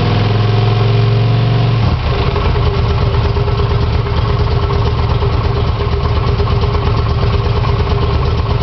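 Motorcycle engine running, its steady note changing abruptly about two seconds in to a pulsing idle.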